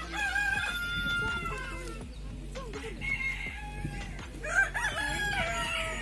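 A rooster crowing twice, each crow a long drawn-out call of about two seconds.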